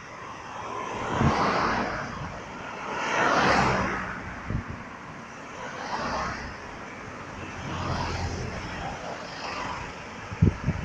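Road traffic on a multi-lane highway: cars passing one after another, each a swell of tyre and engine noise that builds and fades, the loudest about three and a half seconds in. A couple of brief wind thumps hit the microphone near the end.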